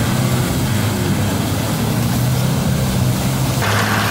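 Land Rover Defender engine running steadily under load as the truck churns through muddy creek water, with water splashing and rushing around it. Near the end a brighter hiss of water and engine noise comes in.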